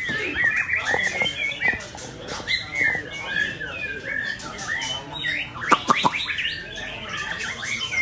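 Many caged songbirds chirping and whistling over one another in a dense, continuous chorus. A few sharp clicks come about three-quarters of the way through.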